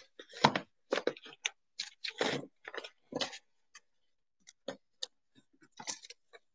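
Irregular short clicks and rustles of handling close to the microphone, coming in scattered bursts with brief gaps.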